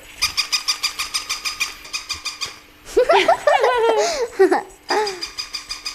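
Battery-powered pink plush toy running, playing a rapid electronic beeping tune of about eight beeps a second, with a high giggling voice in the middle before the beeping resumes near the end.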